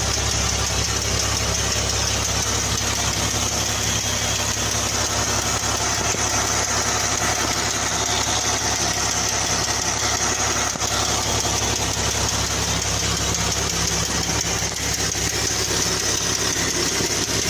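2014 Jeep Wrangler's 3.6-litre Pentastar V6 idling steadily with a ticking from the valvetrain, the sign of a hydraulic valve lifter tick.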